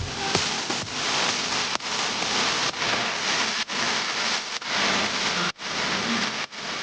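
A steady rain-like hiss, broken by brief dropouts roughly once a second.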